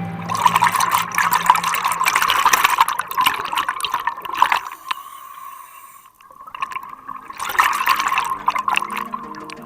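Seawater splashing and washing in two surges, the second coming back after a quieter lull of a few seconds. Background music fades out at the start and faintly returns near the end.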